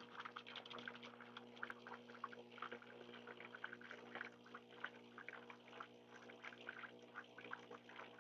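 Gaggia Magenta Plus super-automatic espresso machine faintly spurting and dripping water into a glass from its spout during its initial setup priming, in short irregular splutters over a steady low hum.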